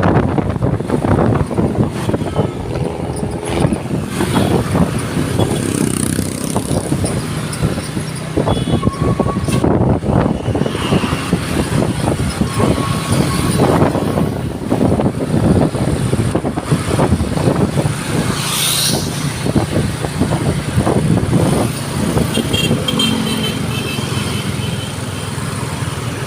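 Road traffic passing close by, with wind on the microphone. Faint short horn tones sound near the end.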